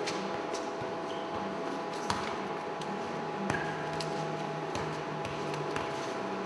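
Football being kicked and juggled on a studio floor: a few short sharp knocks, the clearest about two seconds in and again about three and a half seconds in, over a steady room hum.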